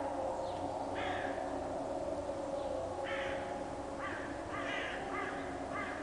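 Distant Kockum KTG-10 pneumatic siren sounding a steady tone, with crows cawing about six times over it.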